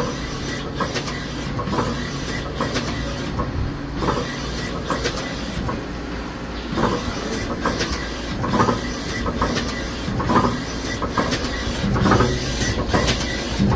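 X2 axis slide of a Star SR-32J CNC Swiss-type lathe moving under power: a steady machine hum with a string of clicks and rattles, louder in the second half. The clicking comes from the sheet-metal axis covers, which the owner takes for normal.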